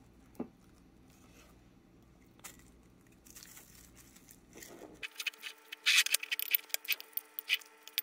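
A spoon scraping and tapping as cooked rice is scooped and pressed into a bowl lined with plastic wrap, with the wrap crinkling. Only a few soft clicks at first, then a quick run of clicks and scrapes over the last three seconds.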